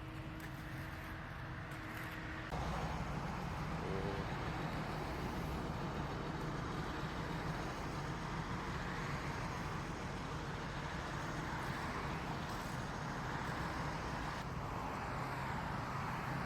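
An engine running steadily with a low hum, heard together with a steady outdoor noise; the sound steps up in level about two and a half seconds in.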